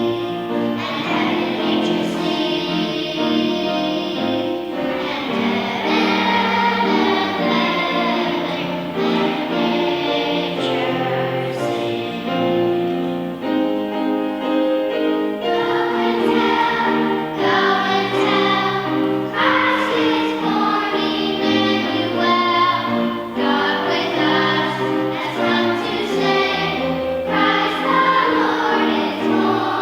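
Choir singing a sustained, slow-moving song.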